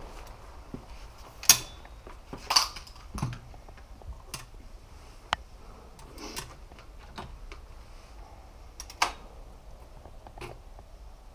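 Sharp metallic clacks and clicks of an over-and-under shotgun being handled between shots: the loudest about a second and a half in, two more soon after, then scattered lighter clicks and one more sharp clack near the end. The sounds fit the action being broken open, spent shells ejected, fresh shells loaded and the gun snapped shut.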